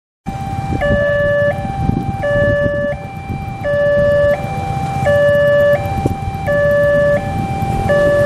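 Railway level-crossing warning alarm sounding its two-tone hi-lo signal, switching pitch about every three-quarters of a second, warning that a train is coming and the road is closed. It starts just after a brief silence, with waiting motorcycle and car engines running underneath.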